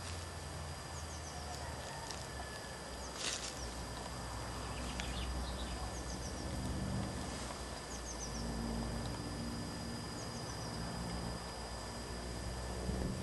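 Distant low rumble of the 15-inch gauge steam locomotive 'Fox' working slowly towards the listener, with small birds singing short high descending trills several times.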